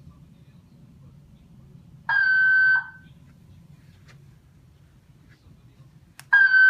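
Hotel fire alarm system sounding its alert tone: a steady high tone lasting under a second, heard twice about four seconds apart, over a faint low hum. A sharp click comes just before the second tone.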